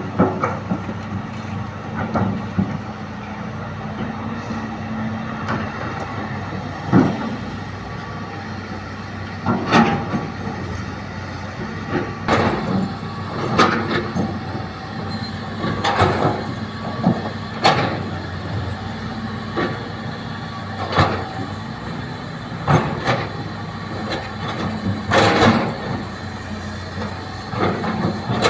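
Hitachi excavator's diesel engine running steadily under load while it digs and loads soil, with repeated sharp knocks and clanks every one to three seconds.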